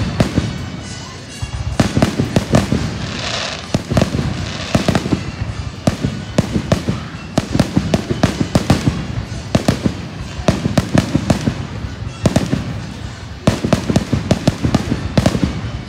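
Aerial firework shells bursting one after another, many bangs in quick succession.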